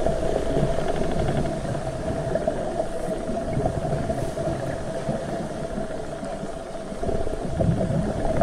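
Underwater sound through a waterproof camera housing: an even low rumble with a steady mid-pitched hum.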